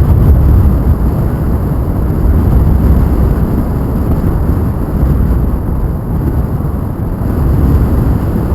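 Wind buffeting the microphone in flight under a paraglider: a loud, steady low rumble that swells and eases.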